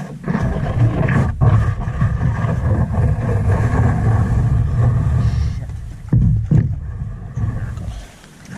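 Canoe hull scraping and grinding over rocks in a shallow creek bed, a loud low rumble carried through the hull-mounted camera, with a few sharp knocks against stone; it drops off near the end.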